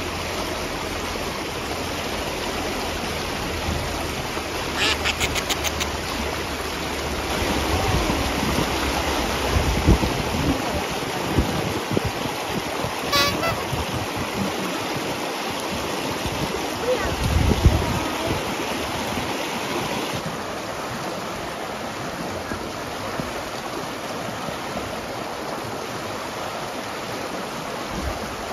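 Shallow river rushing steadily over stones and a rocky riffle, with a short run of clicks about five seconds in and another click near the middle.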